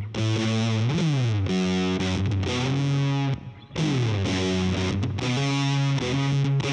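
Electric guitar played through the Hotone Ampero II Stage's Big Pie fuzz, a model of the Big Muff Pi: thick, distorted held notes with slides in pitch. The sound briefly drops out about three and a half seconds in.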